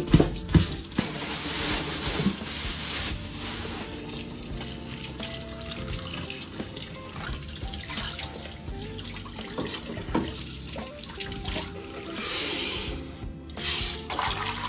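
Kitchen tap running into a sink, with water splashing as food is rinsed. The water is loudest in the first few seconds and again near the end, over background music.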